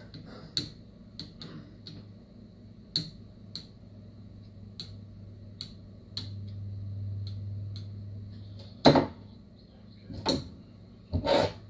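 Light clicks and taps of test leads and clips on the solenoid terminals of a Mercury outboard hydraulic trim motor being bench tested, with a low steady hum for about two and a half seconds in the middle and a few sharper knocks near the end.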